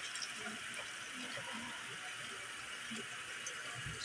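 Kitchen tap running in a steady stream into a clay pot of leftover broth in a stainless steel sink, a continuous even splashing hiss.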